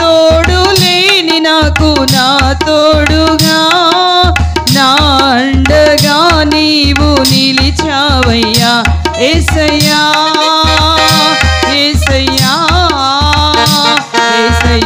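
A woman singing a Telugu Christian worship song into a microphone over a band accompaniment with a steady drum beat of about two to three strokes a second.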